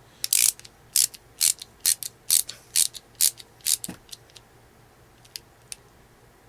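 Screws being tightened with a hand screwdriver into the steering block of an ECX Torment RC truck: about nine short, even clicking strokes, roughly two a second. They stop about four seconds in.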